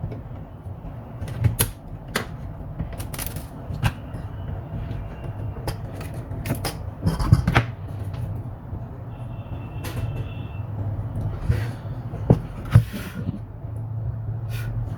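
Irregular clicks and knocks of plastic laptop parts being handled and pried apart during disassembly, over a steady low hum.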